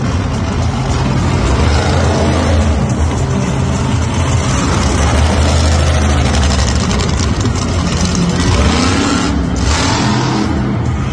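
Monster truck engine running loud and revving, its pitch climbing and dropping back as the truck drives around the arena floor, with a clear rise and fall about eight to nine seconds in.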